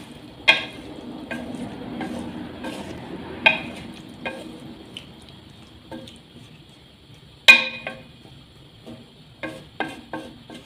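Wooden spatula stirring minced meat and potato wedges in water in a steel pan, scraping and knocking against the pan with the sharpest knock about seven and a half seconds in. A low sizzle fades after the first few seconds.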